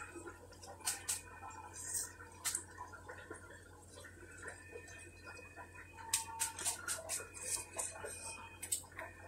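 Gloved hands rubbing and tossing steamed barley grits (belboula) in a glazed earthenware dish, working the grains apart between steamings: soft scattered rustles and small grain clicks, busier in the last few seconds, over a faint steady hum.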